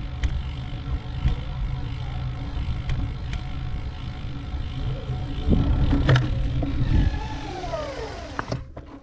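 Wind and road rumble on a bicycle-mounted microphone. A vehicle goes by about six seconds in, its pitch falling as it passes. The sound cuts off abruptly near the end.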